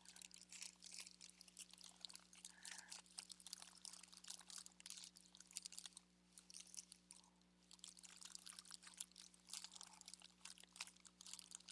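Faint rustling and light clicking of small craft embellishments and paper pieces being handled and sorted by hand, over a steady low hum.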